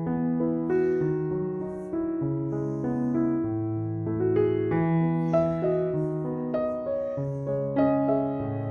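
Background music: a slow, gentle piano piece with sustained chords.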